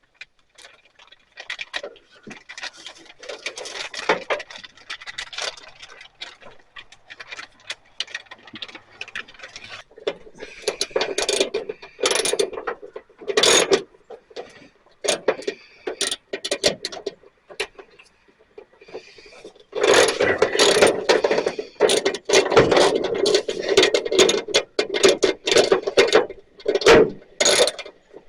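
Hand-tool work on truck hood hinge hardware: irregular clicking and clanking of a ratchet and metal parts, turning into a longer, denser stretch of steady tool noise over the last several seconds.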